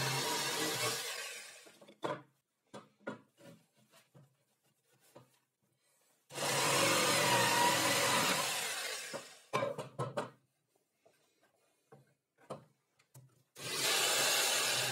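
Handheld electric jigsaw cutting plywood in three short cuts: one trailing off about a second in, one in the middle lasting about three seconds, and one starting near the end. Between the cuts come scattered sharp clicks and knocks.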